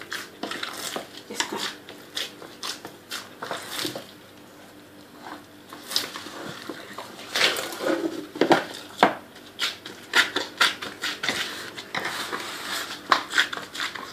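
Whole-wheat roti dough being kneaded by hand: irregular slaps and thuds as the dough is lifted, thrown down and pressed, with knocks and clatter from the bowl. There is a brief lull about four seconds in.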